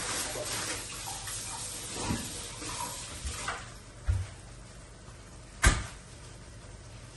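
Kitchen cooking sounds: utensils stirring and scraping in a pan for the first few seconds, then scattered knocks of utensils or cookware, the loudest a single sharp knock toward the end.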